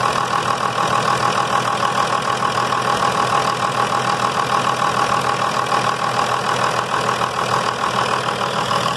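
24-valve Cummins 5.9 L inline-six turbodiesel idling steadily while its freshly silver-brazed high-pressure injection line is checked for leaks.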